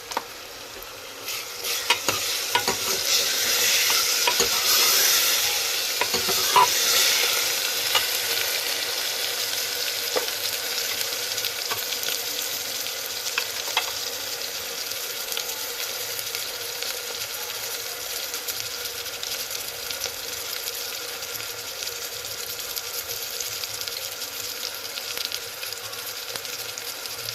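Minced soybean frying in hot oil in a pan, sizzling, with a spoon clicking and scraping against the pan as it is stirred. The sizzle surges about two seconds in as garlic goes into the oil, then settles to a steady fry.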